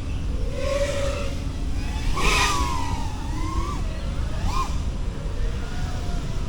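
FPV drone's brushless motors whining, the pitch sweeping up and down with the throttle over a steady low rumble, with a louder rush about two seconds in.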